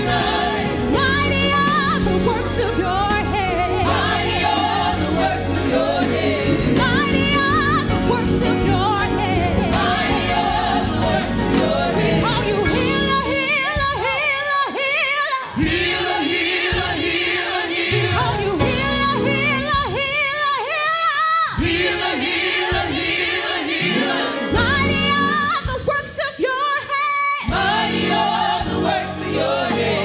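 Gospel choir singing with a lead singer and a band. In the second half the band's low end drops out several times for a second or two while the voices carry on.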